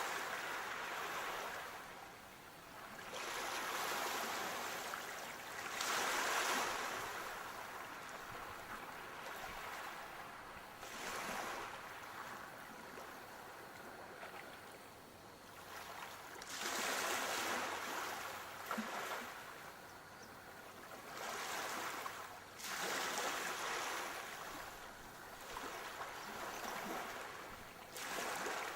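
Sea waves breaking and washing up the shore in repeated surges, each swell of rushing noise rising and falling every few seconds.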